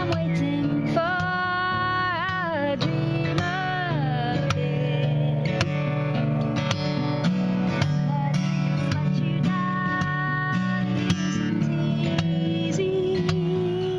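Acoustic guitar played steadily in an instrumental passage, with a wordless, wavering vocal line over it in the first few seconds.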